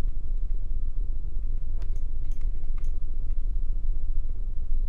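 Steady low rumble of background noise on a desk microphone, with a few faint computer clicks about two to three seconds in.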